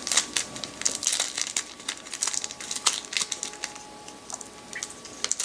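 Foil Yu-Gi-Oh booster pack wrapper crinkling in the hands as it is worked open, with many short, irregular crackles.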